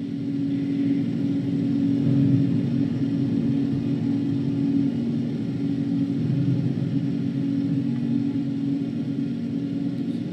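Soundtrack of a digital video artwork played over a room's loudspeakers: a low, steady electronic drone that swells in over the first couple of seconds and then holds, with a faint strike near the end.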